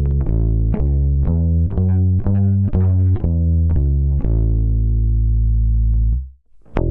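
Harley Benton Kahuna CLU-Bass ukulele bass recorded line-in through its built-in pickup, played fingerstyle: a run of single notes about two a second, then a last note held until it fades about six seconds in. After a short silence, new bass notes start near the end.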